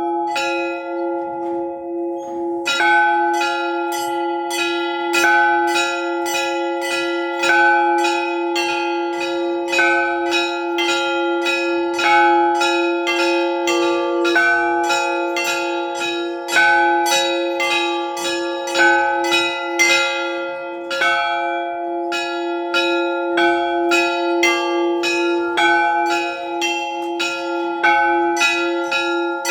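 Several bells rung together: a large bell struck about every two seconds, its low note sounding on continuously, with smaller bells struck quickly in a repeating pattern between its strokes. The smaller bells join in about three seconds in.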